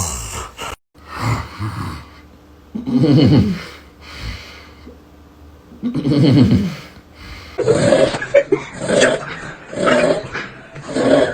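Snoring: a few long snores several seconds apart, then shorter snores coming about once a second from about eight seconds in.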